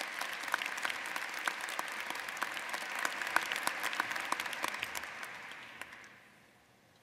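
Audience applauding, many hands clapping together, dying away about six seconds in.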